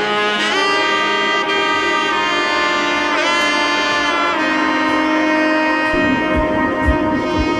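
Background music: a melody of long held notes with a pitch bend about three seconds in, joined by a steady bass-drum beat near the end.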